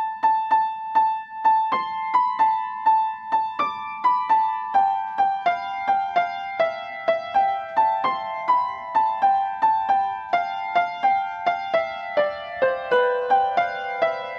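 Background music: a simple piano or electric-keyboard melody of short, evenly paced notes, about three a second, stepping up and down in a gentle tune.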